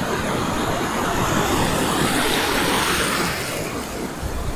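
Ocean surf washing in over shallow sand, a steady rush that swells past the middle and then eases.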